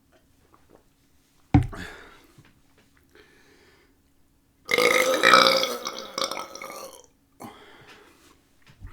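A single long, loud belch lasting about two and a half seconds, its pitch wavering. A sharp knock comes about three seconds before it.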